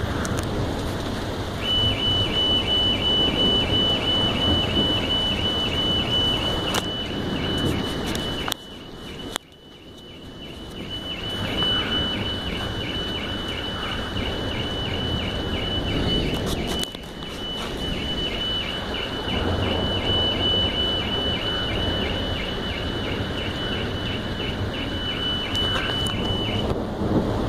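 Car alarm beeping in a fast, even pulse at one high pitch, starting about two seconds in and stopping shortly before the end, over the steady hiss of heavy rain. The sound briefly drops away about nine seconds in.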